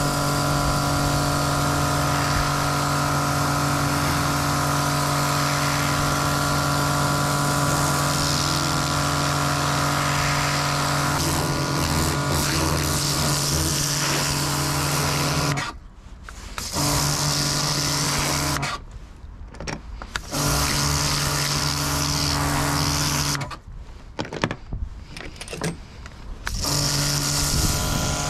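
Pressure washer running with a steady motor-and-pump drone under the hiss of the water jet. It stops and restarts three times in the second half, the last pause about three seconds long.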